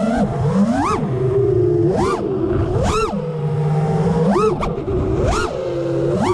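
The brushless motors and propellers of a 5-inch FPV quadcopter whine over a steady low hum. About six times the pitch shoots up sharply with a throttle punch and then drops back.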